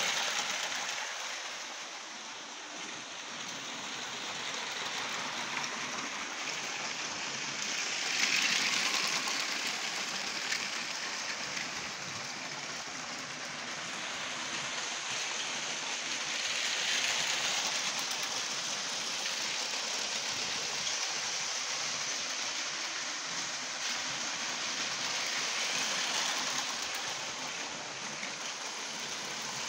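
Battery-powered Lego trains running on plastic track: a steady rattling hiss that swells about every eight or nine seconds as a train passes close by.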